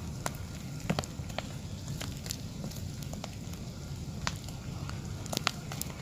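A lightning-struck tree burning from the inside: fire with a steady low rumble and irregular sharp crackles and pops.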